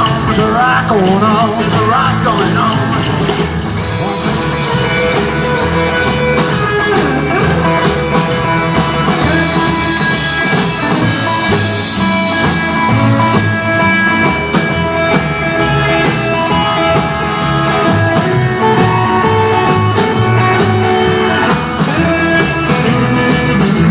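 A rockabilly band playing live: upright bass, acoustic and electric guitars and drums. Singing trails off in the first couple of seconds, then the band plays on without vocals.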